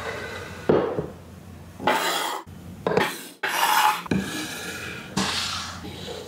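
Several irregular scrapes and rubs of hard household objects against a hard surface, each lasting under a second.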